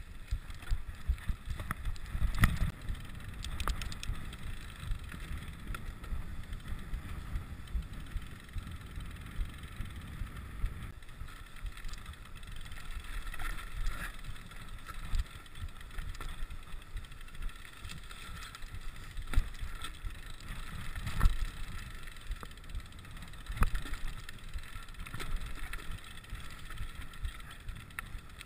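Rigid 29er mountain bike rolling over a rough, rocky dirt track: a steady tyre rumble on gravel, with frequent knocks and rattles as the unsuspended bike jolts over stones.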